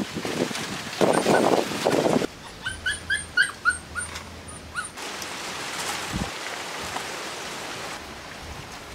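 Puppies yelping: a run of about eight short, high yelps, roughly three a second, coming after a loud rough rush of noise. A steady hiss follows.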